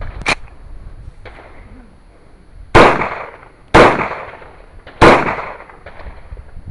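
Pistol shots: three sharp reports with echoing tails, about a second apart, starting near the middle, and a fourth at the very end, with a few faint clicks before them.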